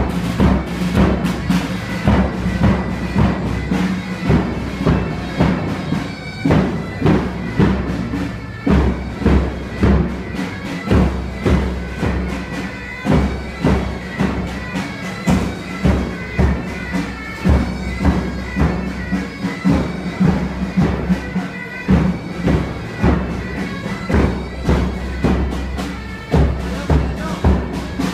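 Live band music: a steady droning wind instrument over a regular bass-drum beat of about two strokes a second.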